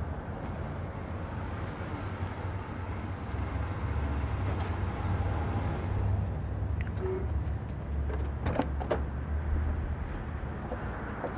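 Car engine rumbling low as the sedan rolls up and stops at the curb, then a few sharp clicks near the end as the car door is unlatched and opened.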